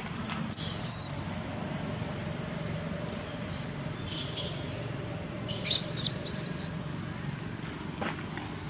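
Infant macaque giving high-pitched screams: one about half a second in and two close together near six seconds, the sound of a distressed baby being handled roughly. A steady high-pitched insect drone runs underneath.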